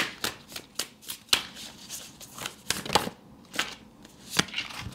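A deck of tarot cards shuffled by hand: a quick, irregular run of a dozen or so sharp card snaps and flutters.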